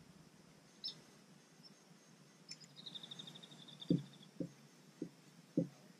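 Faint lakeside quiet with a bird's short high chirp, then a brief high trill in the middle. Near the end come four or five soft low knocks, about half a second apart.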